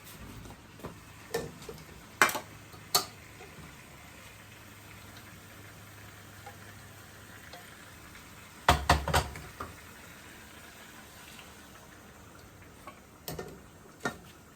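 Scattered knocks and clanks of a utensil against a cooking pot during stovetop cooking, with a louder cluster of knocks and thuds about nine seconds in.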